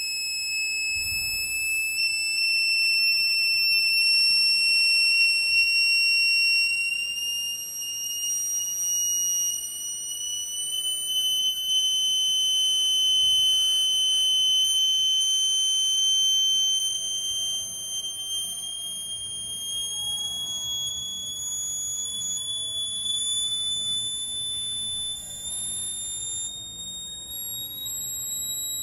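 A shrill, steady electronic tone from a loudspeaker driven by a signal generator, slowly rising in pitch, sounding into a Kundt's tube and setting up standing waves in it.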